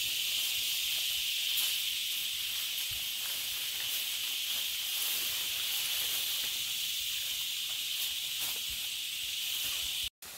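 Steady high-pitched insect chorus, an unbroken shrill hiss, with faint rustling of steps through grass; it cuts off abruptly near the end.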